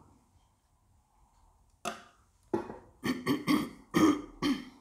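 A woman clearing her throat: a few short, voiced rasps in the second half, after a single sharp sound a little under two seconds in.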